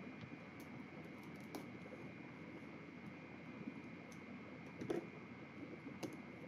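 Faint handling of a cardboard box: a scissors blade slitting the tape seam, then hands pressing and shifting the lid, small clicks and scrapes with one slightly louder knock about five seconds in.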